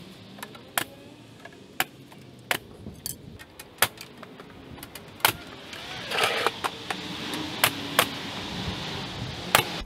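Pneumatic nail gun firing into wood trim overhead: about ten sharp shots at uneven intervals, with a short hiss of air about six seconds in.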